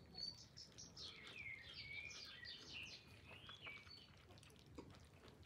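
Faint bird twittering: a quick series of short, high chirps and warbled notes that stops about four seconds in.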